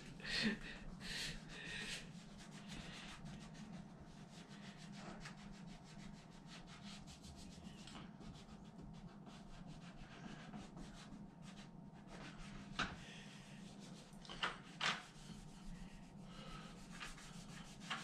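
Faint rubbing of a cleaning wipe being scrubbed back and forth over a painted door face around the empty doorknob hole, with a few brief sharper sounds about two-thirds of the way through.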